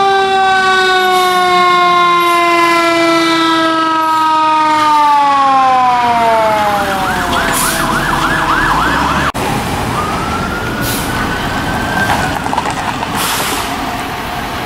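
Fire engine sirens. A long wail falls slowly and then more steeply in pitch over about seven seconds. A fast yelp follows briefly, and after an abrupt break near nine seconds in comes a slower rising wail.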